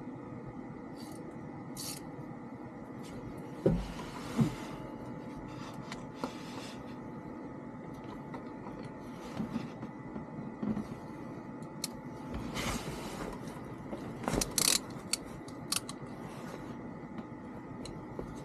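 Hand tools working on metal while the glow plugs are removed from the diesel engine: scattered scrapes, clicks and clinks, with two sharp knocks a few seconds in and a quick cluster of knocks later on.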